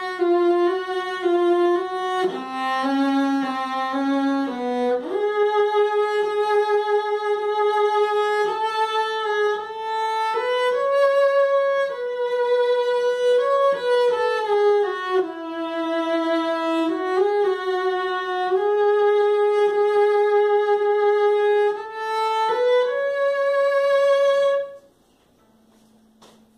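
Solo cello played with the bow: a single melodic line of held and moving notes, ending on a sustained note about 25 seconds in.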